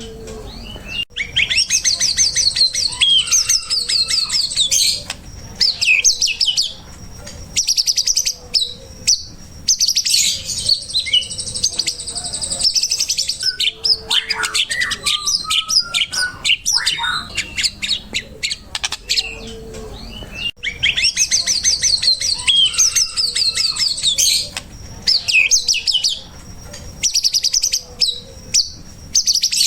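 White-rumped shama (murai batu) singing without pause: rapid high chattering trills mixed with whistled phrases, broken by short gaps. The same run of phrases comes round again about twenty seconds later, as in a looped training recording.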